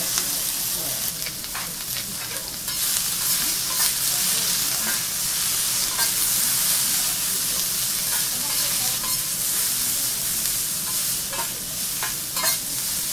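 Bean sprouts and cabbage sizzling on a hot steel teppanyaki griddle as they are stir-fried with metal spatulas, the spatulas clicking and scraping on the plate now and then.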